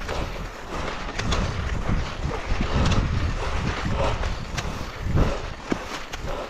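Wind rumbling on an action camera's microphone during skiing, with the hiss of skis over snow and a few sharp scrapes or clicks.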